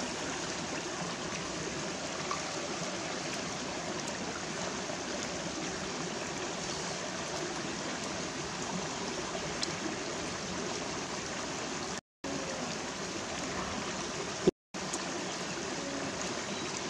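Stream water running over rocks, a steady rushing. The sound drops out to silence twice for a moment in the last third, with a sharp click just before the second drop-out.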